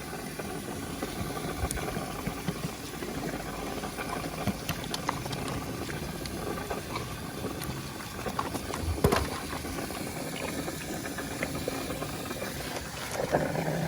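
An animal chewing pieces of watermelon, a steady run of many small crunches and clicks, with one sharper crunch about nine seconds in.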